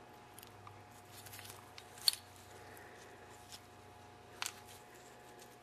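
Faint small clicks and light scraping as a metal pick works inside a small-engine carburetor body and little parts are handled and set down, with a sharp click about two seconds in and another near four and a half seconds, over a faint steady hum.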